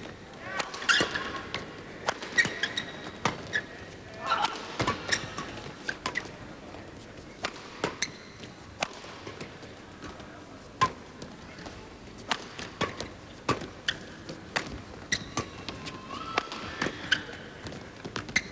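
Rackets striking a shuttlecock in a fast men's doubles badminton rally: sharp hits at an uneven pace, some less than a second apart.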